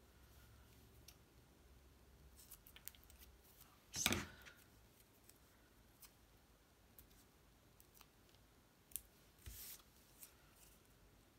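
Small craft scissors quietly snipping pieces of foam adhesive tape, with one louder clack about four seconds in and scattered light clicks of small pieces being handled.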